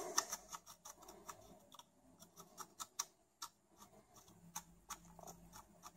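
Faint, irregular light clicks and scratches of a small drill bit twisted by hand in the air pump's inlet fitting, breaking up hardened solder flux that has clogged the pump's input.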